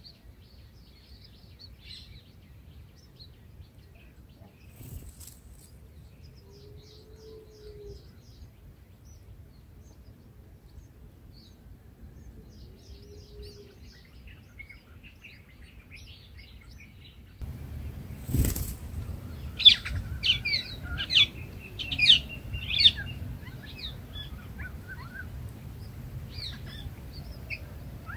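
Faint scattered bird chirps, then about two-thirds of the way in a sharp thump followed by a run of loud, short, high-pitched chirps from red-whiskered bulbul nestlings begging at the nest as the parent feeds them.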